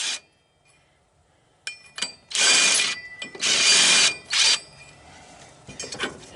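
Power tool spinning a 5/8 socket on a mower bolt in three short bursts about a second apart, each a steady whir, then a few light clicks and knocks of the socket and metal. The bolt does not come out.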